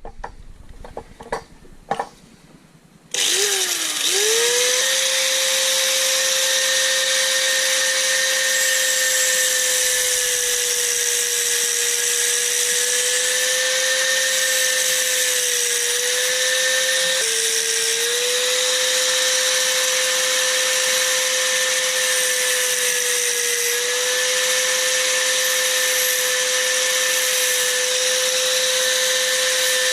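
A handheld power grinding tool switched on about three seconds in, spinning up quickly and then running at a steady high-pitched whine while it shaves back the metal blade of a motorcycle ignition key. A few light clicks of handling come before it starts.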